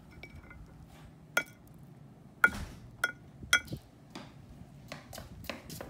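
Small hammer striking geode rock on a stone slab: four sharp, ringing clinks, the first on its own and three more in quick succession, then a few lighter taps. A child is trying to crack the geode open.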